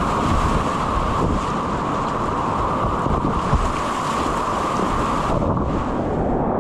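Whitewater of a river rapid rushing steadily and loudly. The high hiss turns duller about five seconds in.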